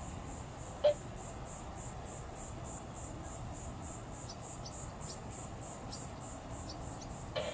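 Insects in a steady high pulsing chorus, about five pulses a second, over low background noise, with one short sharp chirp about a second in.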